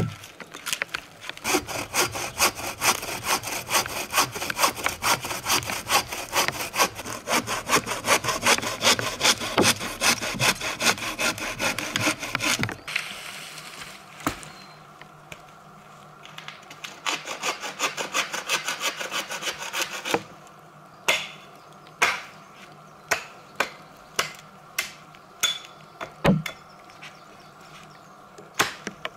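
Hand saw cutting through a log in quick, steady back-and-forth strokes, which stop a little under halfway through. Later comes a series of sharp wooden knocks, a little more than one a second: a hatchet pounding a wooden stake.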